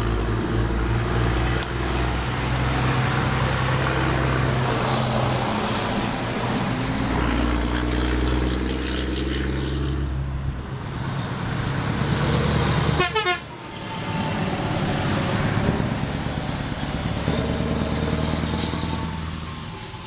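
Heavy truck diesel engines revving hard as they drive past, the engine note rising and falling. The sound breaks off abruptly about two-thirds of the way through, then engine sound resumes and fades away near the end.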